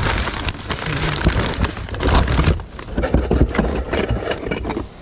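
Hands rummaging in a cardboard box of packed kitchen items: newspaper packing rustling and crinkling, with many small clicks and knocks of plastic utensils and gadgets against each other.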